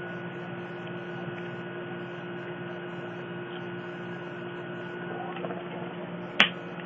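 Steady electrical hum with a faint higher whine, and one sharp click about six seconds in.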